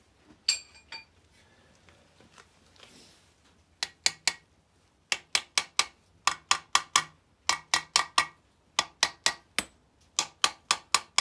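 Ratchet wrench clicking in repeated short runs of about five quick clicks, with brief pauses between runs, as fasteners at the end of an MGB rear axle casing are run down. A brief ringing metallic clink comes about half a second in.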